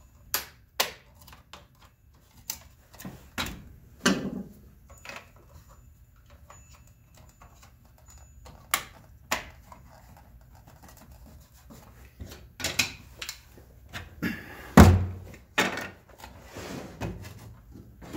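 Plastic cover plates being pressed and snapped back onto a belt grinder's inverter (variable-frequency drive) housing: a scattered series of clicks and knocks, with one heavier thunk about fifteen seconds in.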